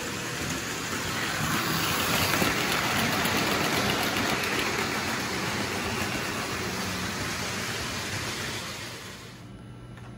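Märklin HO model train running along the track with a steady hum underneath: a rushing rumble that grows louder about a second in, stays loud through the middle and drops away near the end.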